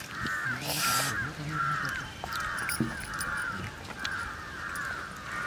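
A bird calling over and over, short arched calls coming about twice a second.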